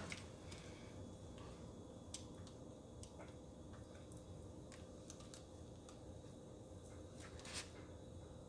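Faint, scattered small clicks and scrapes of a sharp razor blade working under the adhesive-backed overlay of a range's clock control board, with one slightly louder click near the end, over quiet room tone with a faint steady hum.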